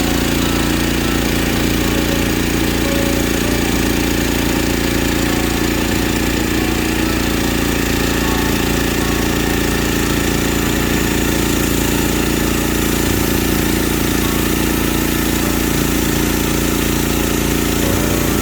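An engine running steadily at constant speed, unchanging throughout.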